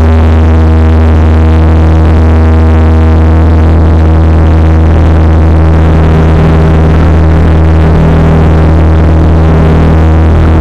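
Cabin drone of the Xian MA60's Pratt & Whitney Canada PW127J turboprop engines and propellers: a loud, steady hum of low propeller tones while the aircraft rolls along the ground.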